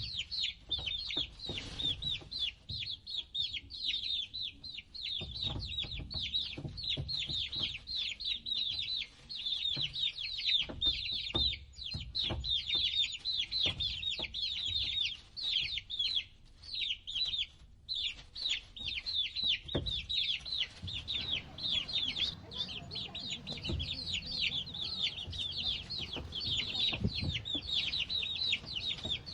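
A brood of baby chicks peeping continuously: many rapid, high, downward-sliding peeps overlapping one another, with occasional soft knocks underneath.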